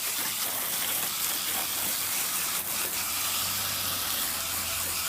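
Water spraying steadily onto a dirty window air conditioner unit to rinse the dirt out of it.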